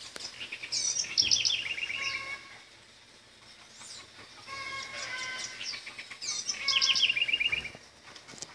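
A songbird singing the same phrase twice, a couple of seconds apart: a few clear notes, then a fast run of rapid, chattering notes.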